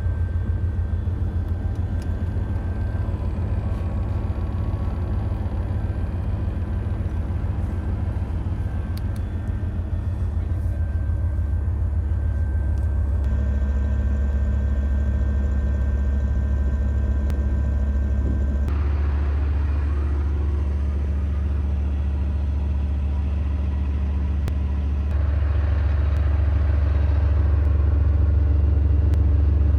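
Heavy diesel engine of a Gepard self-propelled anti-aircraft gun running steadily, a deep continuous rumble. Its tone and level shift abruptly a few times, and it grows slightly louder near the end.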